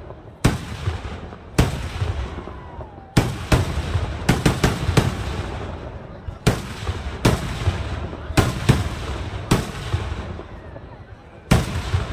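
Kerala temple-festival fireworks (vedikkettu) going off: more than a dozen loud explosive bangs at irregular intervals, some in quick succession, each trailing off.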